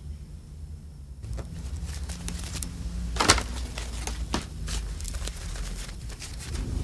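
Crinkling and rustling of artificial flowers being handled and shaped by hand, a run of short sharp crackles with one louder about three seconds in, over a low steady hum.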